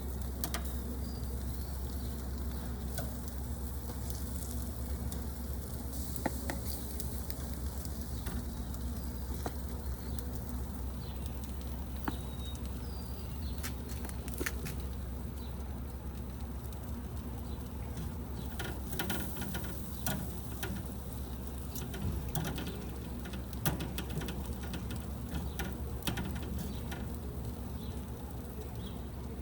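Barbecue chicken sizzling faintly on the grill while pieces are taken off, with scattered clicks and taps of handling over a steady low background hum.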